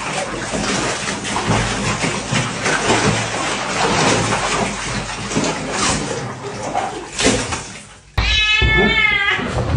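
Water splashing and sloshing in a plastic tub as a dog thrashes about in it. Near the end it cuts sharply to a cat giving one drawn-out, wavering meow.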